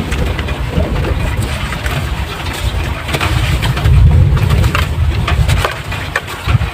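Soft sand-cement crumbling and breaking apart in water: scattered crackles and pops. Under them runs a loud low rumble that is strongest about four seconds in and fades near the end.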